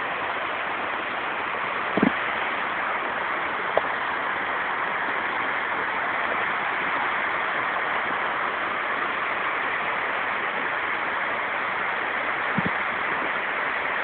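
A waterfall: water rushing in a shallow sheet over bare rock slabs, a steady even hiss. A few brief knocks sound faintly over it.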